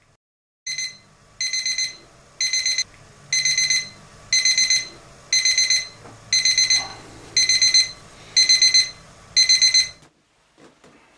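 Electronic alarm clock beeping: rapid runs of about four high beeps, one run roughly every second, until it cuts off near the end.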